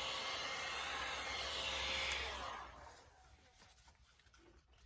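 Heat gun blowing steadily, then shutting off about two and a half seconds in and dying away; a few faint light taps follow.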